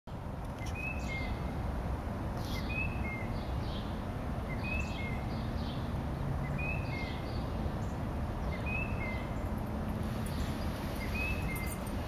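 A bird that the uploader takes for a tufted titmouse singing: a short whistled phrase, a higher note dropping to a lower one, repeated six times about every two seconds. A steady low background rumble runs underneath.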